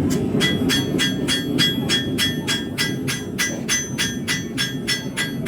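Hand hammer striking hot steel on an anvil in a steady forging rhythm, about three and a half blows a second, each blow ringing. The blows start about half a second in, over a steady low rumble.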